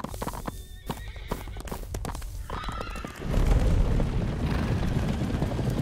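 Horse hooves knocking, then a horse whinnying about two and a half seconds in. About three seconds in, the sound turns into the louder, dense drumming of galloping hooves on dirt.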